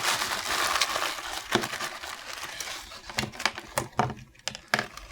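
Packaging rustling and crinkling as art supplies are taken out of a box, then several light separate taps and clicks as items are handled and set down.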